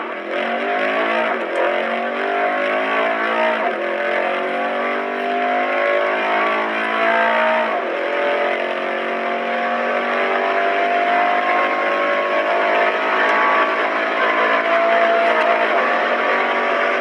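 Mercedes-AMG E63 S 4MATIC's 4.0-litre twin-turbo V8 accelerating hard at full throttle, heard from inside the cabin. The engine note climbs and drops back with quick upshifts about 1.5, 4 and 8 seconds in, then rises slowly through a long pull in a high gear.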